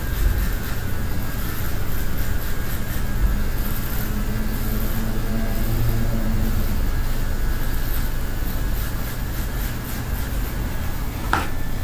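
Electric hair clippers buzzing steadily as they shave a scalp down close to the skin, with a short click near the end.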